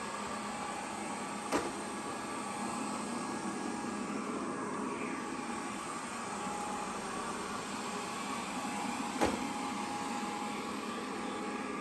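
GleeU GRS1 robot vacuum running steadily, its motor and brushes making an even whir with faint steady tones. Two brief knocks cut through it, one about a second and a half in and one near the nine-second mark.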